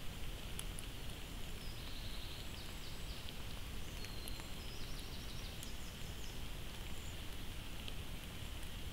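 Steady hiss from a Bushnell Trophy Cam trail camera's microphone, with faint woodland ambience. A small bird sings faintly in quick chirps from about two seconds in until about six seconds in.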